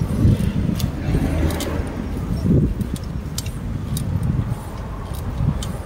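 Wind buffeting the microphone of a camera mounted on a moving bicycle, an uneven low rumble, with scattered light rattling clicks from the bike and road traffic alongside.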